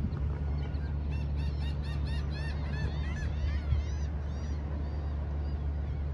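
Wind buffeting the microphone as a steady low rumble, with a flock of birds calling in a quick, overlapping run of short rising-and-falling calls from about a second in until past four seconds.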